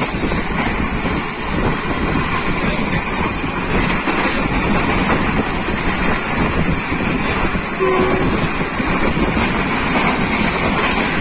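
Diesel passenger train running at speed through a station without stopping, heard from aboard: a steady rush of wheel-on-rail and wind noise.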